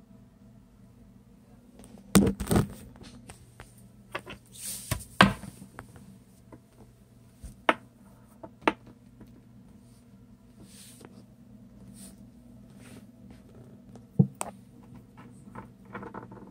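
Scattered sharp knocks and taps on a wooden tabletop as wax crayons are handled and stood upright, with some rustling handling noise, over a faint steady hum.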